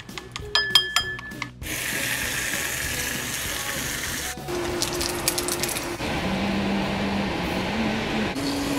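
A fork clicks rapidly against a ceramic bowl as eggs are whisked. Then bacon sizzles in a hot stainless steel frying pan, a steady hiss that is cut into short clips. Soft music with slow held notes plays underneath.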